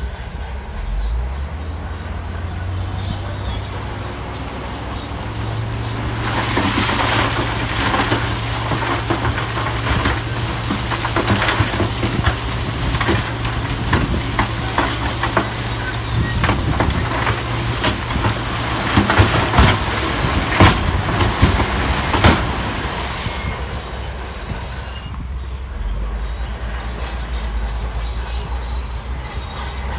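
Shantui D17 bulldozer's diesel engine running under load, its pitch stepping up about six seconds in. Dense clanking and scraping of steel tracks and rock goes with it until a few seconds past the middle, then the engine carries on alone.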